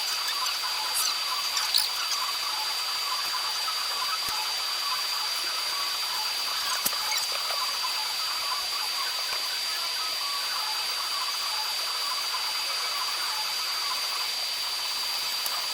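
Laser back-glass removal machine running on an iPhone 14 Pro, a steady high-pitched whine over an even hiss, with a couple of faint clicks.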